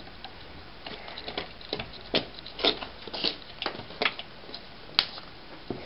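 Irregular light clicks and taps from a work light and its extension cord being handled and untangled, with one sharper click about five seconds in.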